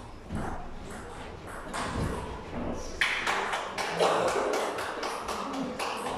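Table tennis rally: the celluloid ball clicking off bats and the table in quick succession, with the loudest knocks about three and four seconds in.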